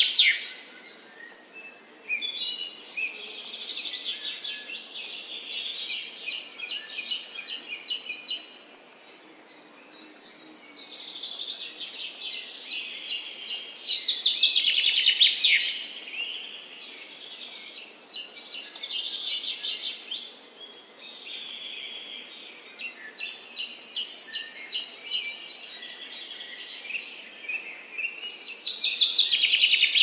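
Songbirds singing and chirping: high-pitched phrases a few seconds long, built of fast runs of repeated notes, come and go with short pauses between them, over a faint steady background hiss.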